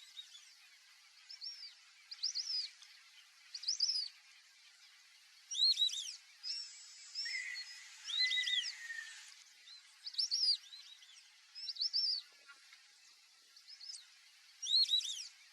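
White-faced whistling-ducks calling: short, high, clear whistles, often in quick groups of two or three, coming about every second with several birds overlapping.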